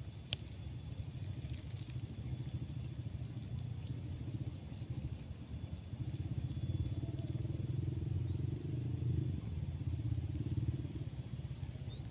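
A motor engine running steadily as a low rumble, growing a little louder for a few seconds past the middle.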